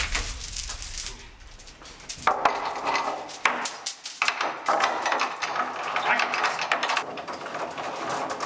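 A metal chain clinking and rattling against metal door pull handles as it is looped through them to chain the double doors shut. The clinking starts about two seconds in and goes on in quick, irregular bursts.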